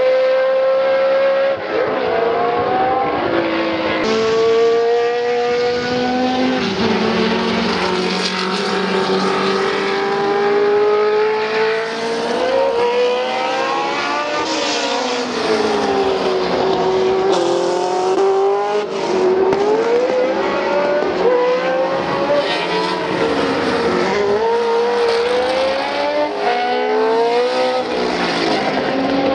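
Ford Cosworth DFV 3-litre V8 engines of historic John Player Special Lotus Formula 1 cars running at racing speed on track. The engine note climbs through the gears in quick rising sweeps and drops sharply on downshifts and lifts off the throttle as the cars pass.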